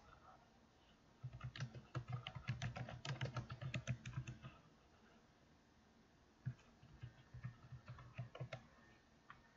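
Faint typing on a computer keyboard: a quick run of keystrokes lasting about three seconds, a pause of about two seconds, then a second, shorter run.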